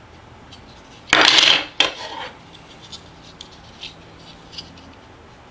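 Handling noise of a small 3D-printed plastic test piece turned in the fingers: a short rubbing rush about a second in, a sharp click just after it, then a few faint light clicks.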